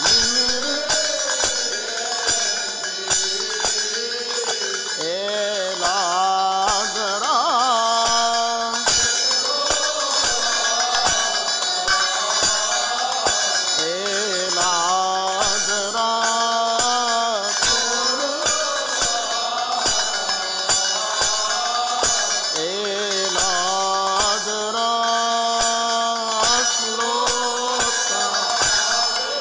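Arabic church hymn: a male cantor sings long, ornamented phrases with wavering held notes over a steady percussion beat.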